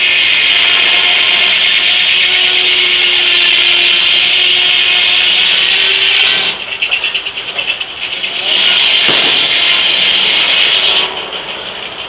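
Large circular sawmill blade ripping a board off a burr oak log, a loud steady rasp. The sound drops about six and a half seconds in, comes back loud for a few seconds, and falls away near the end.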